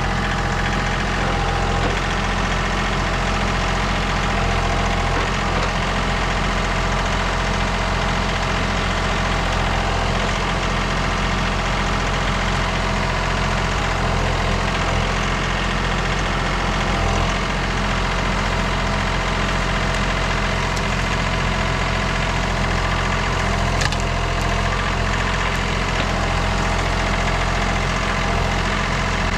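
Compact diesel machinery engine running steadily at a constant speed, with no change in pitch.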